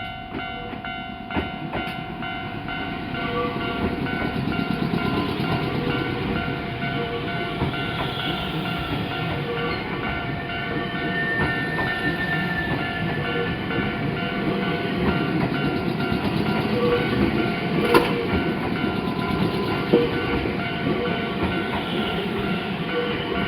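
Nankai express train running past over a level crossing, its wheels rumbling and clattering on the rails with a few sharp knocks. The crossing's warning signal rings steadily over the noise until near the end.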